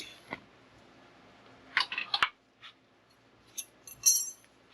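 A few short clicks and scrapes of things being handled: a quick cluster about two seconds in with one sharp click, then fainter rattling near the end.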